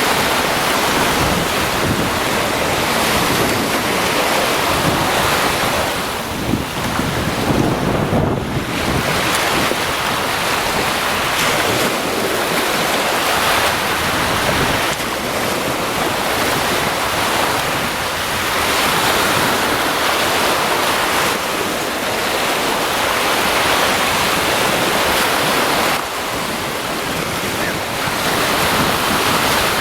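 Caspian Sea surf washing onto a beach, the noise swelling and easing every few seconds, with wind buffeting the microphone.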